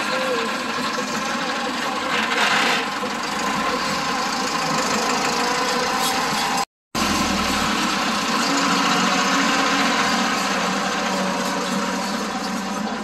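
Tractor diesel engine running steadily under load as it pulls a rear leveling blade through wet soil. The sound cuts out completely for a moment just past halfway.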